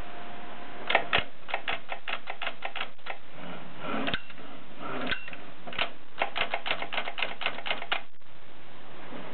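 AEG Mignon index typewriter typing: quick runs of sharp clacks as characters are struck, with a gap of about two seconds in the middle broken by a few single strokes.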